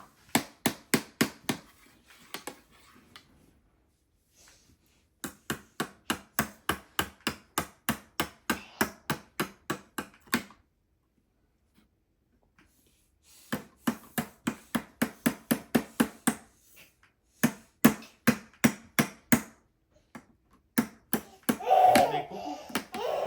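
A small hammer striking a block of ice over and over in quick runs of about three to four taps a second, with pauses between the runs: chipping at a frozen ice egg to break out the toy inside.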